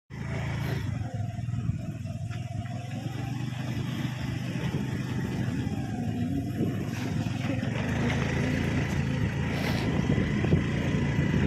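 A motor vehicle's engine running steadily as it drives along a rough road, heard from on board, slowly growing louder toward the end.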